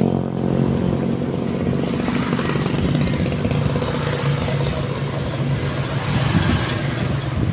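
Wind rumbling on the microphone of a moving rider, over a low steady motor hum.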